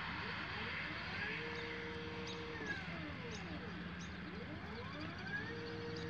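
Astro-Physics Mach2 equatorial mount slewing at go-to speed: a motor and gearbox whine whose pitch sweeps up and down several times as the axes speed up and slow down, settling into steady tones in between.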